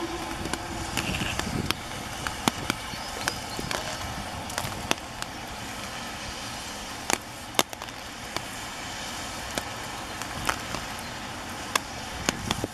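Distant steam locomotive whistle holding one steady note, cutting off about two seconds in. After it comes a steady hiss of rain with irregular sharp ticks of raindrops striking the camera.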